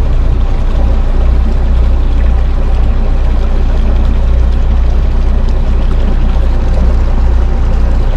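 A large boat's inboard marine diesel engine running at idle, out of gear, a steady low drone that does not change.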